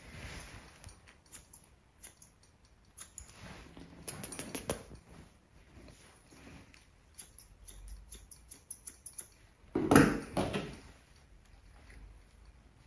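Grooming scissors snipping a dog's facial hair in short, irregular cuts, busiest around four seconds in, with a louder rustle about ten seconds in.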